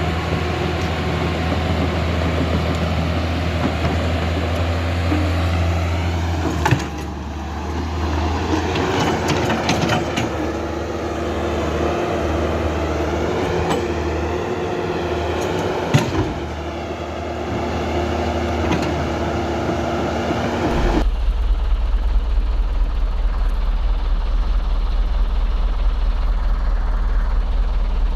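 Construction machinery running steadily with a low engine drone and a shifting whine, broken by two sharp knocks. About three quarters of the way through the sound changes abruptly to a deeper, steadier drone.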